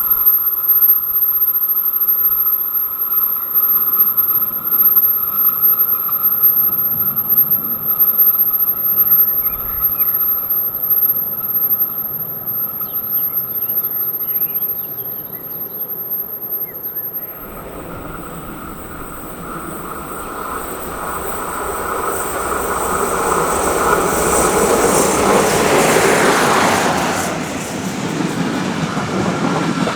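Electric locomotive-hauled passenger trains on the line: a steady rolling rumble with a held tone, then, after a sudden change about halfway through, a second train approaching and growing louder to a peak a few seconds before the end, then easing off.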